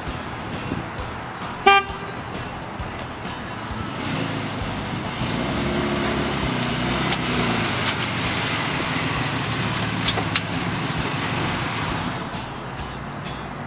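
A short car horn toot about two seconds in, then an SUV's engine and tyres growing louder as it drives slowly up close, easing off near the end as it stops.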